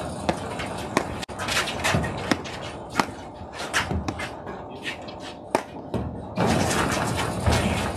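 Platform tennis rally: sharp pops of perforated paddles striking the sponge-rubber ball, about once a second, with the ball hitting the court and shoes scuffing in between. A louder stretch of scuffing noise comes near the end.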